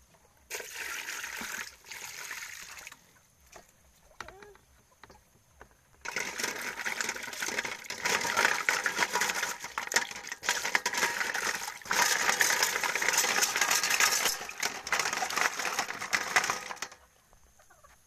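Water splashing in a metal pot of land snails as they are swished and rubbed by hand, with shells clicking against each other and the pot. A couple of short bursts come first, then about ten seconds of steady splashing that stops near the end.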